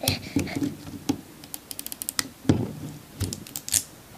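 Irregular clicks and crackles of LOL Surprise toy packaging being handled and unwrapped, with a quick run of light ticks about halfway through.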